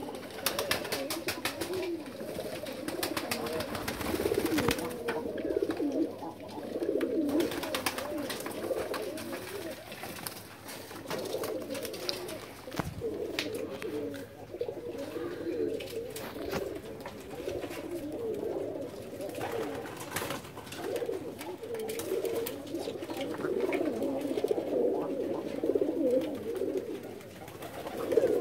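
A loft of fancy pigeons, fantails among them, cooing continuously in many overlapping low calls, with frequent short clicks and wing flaps.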